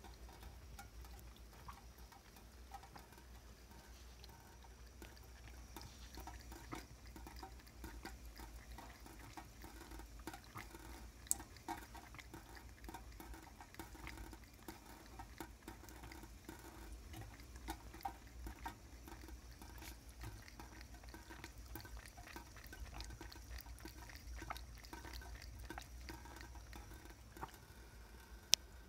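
Domestic cat lapping water from a thin stream running out of a kitchen tap: a long run of faint, quick, wet ticks, with two sharper clicks, one about a third of the way in and one near the end.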